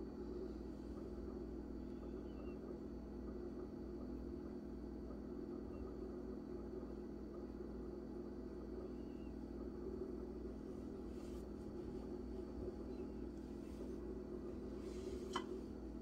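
Steady low room hum with no other clear sound, and one faint click about fifteen seconds in.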